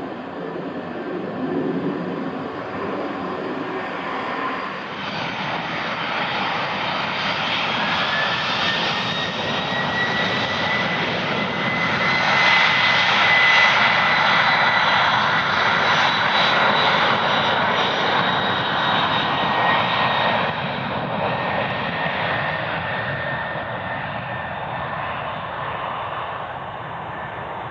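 Boeing 767-300 airliner's twin General Electric CF6-80C2 turbofans spooling up to takeoff thrust for the takeoff roll. A whine climbs in pitch for several seconds, then holds steady under a loud rush of jet noise. The noise is loudest about halfway through and fades slowly as the airliner accelerates away down the runway.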